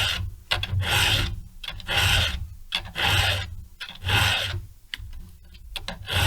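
Hand file rasping across the cutters of a chainsaw chain, about one forward stroke a second, five strokes, then a short pause before the next; the cutters are being filed from full chisel to a milling angle.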